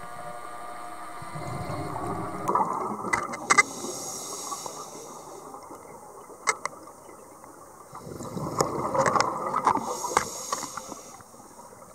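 Underwater scuba regulator breathing: a hissing inhale followed by a rush of bubbling exhaust, heard twice. A faint steady hum runs under the first two seconds.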